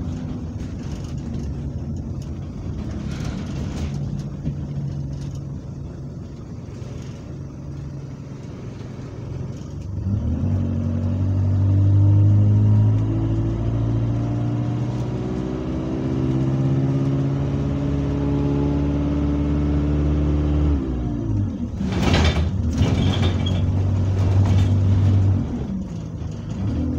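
Diesel engine of a single-deck ADL Enviro200 bus, heard from inside the saloon. It runs low and steady at first, then about ten seconds in the bus pulls away and the engine note climbs in steps as it works up through the gears, easing off about twenty seconds in. Just after, there is a brief loud rush of noise, and the engine pulls again.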